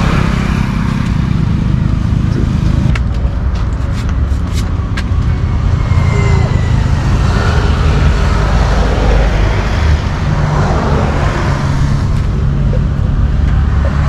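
Road traffic passing close by: a steady rumble of vehicles on the road, with a few sharp clicks about three to five seconds in.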